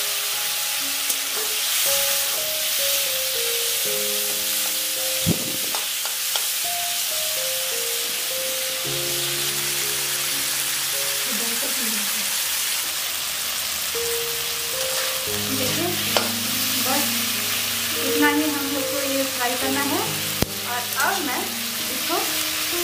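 Tomato and onion pieces sizzling in hot oil in a wok and being stirred with a metal spatula, with a couple of sharp knocks. Soft background music with long held notes plays over it.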